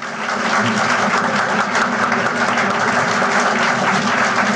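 An audience applauding steadily, many hands clapping at once, on an old lecture-hall recording.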